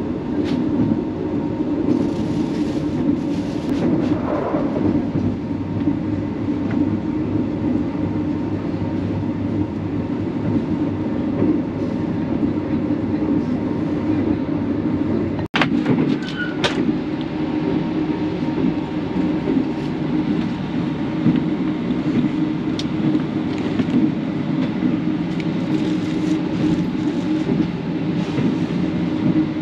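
Steady rumble of a passenger train running, heard from inside a sleeper carriage, with one sharp click about halfway through.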